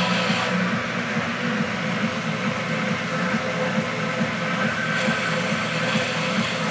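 Wood lathe running steadily, turning a pen blank, with a motor hum and a hiss that thins out about half a second in and comes back near the end.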